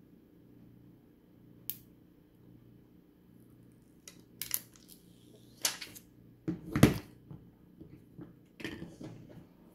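Handling noise from peeling and working a thin plastic screen-protector film on a smartphone: scattered crinkles, rustles and small clicks. The loudest is a thump about two-thirds of the way through, as the phone is handled against the mat.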